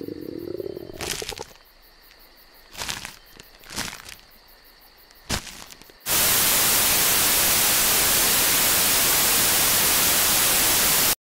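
A few scattered sharp crackles, then, about six seconds in, a loud, even hiss of analogue TV static. It runs for about five seconds and cuts off abruptly near the end.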